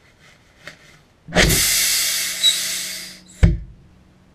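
A tubeless tyre's bead-seating ignition of petrol vapour: a sudden blast about a second in, then about two seconds of loud rushing hiss that fades out, then one sharp bang.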